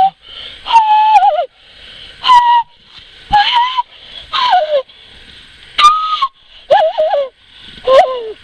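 A person calling to a bird with about eight short, breathy, hooting whistles, each wavering up and down in pitch.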